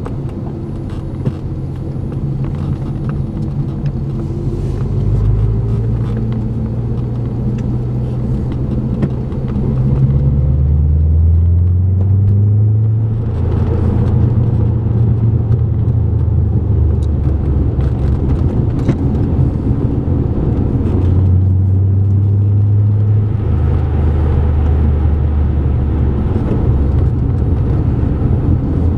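A car's engine and tyre noise heard from inside the cabin while driving; the engine note rises as the car speeds up about ten seconds in, and changes again a little after twenty seconds.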